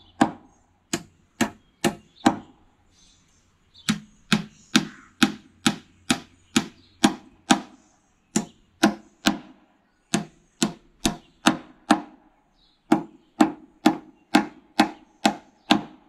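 Small hammer driving little finish-type nails into a dovetailed wooden beehive box: sharp knocks about two a second, in runs with brief pauses between them.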